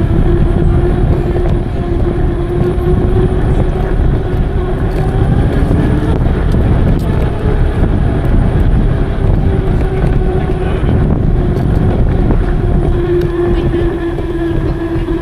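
Wind noise on the microphone of a moving e-bike, with a steady low hum that fades out and comes back.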